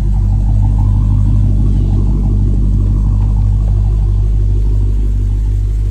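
Dodge Challenger SRT Hellcat's supercharged V8 engine running steadily, loud and low-pitched.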